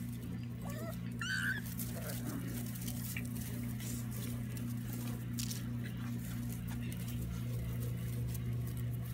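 Jagdterrier puppies play-fighting: a short high squeal with a couple of rising yelps about a second in, then scuffling and scattered claw clicks on brick pavers, over a steady low hum.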